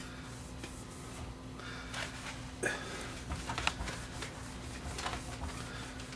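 Cloth or paper towel wiping and rubbing the front-panel display glass of a CD player, in short scattered strokes and rustles, over a steady low electrical hum.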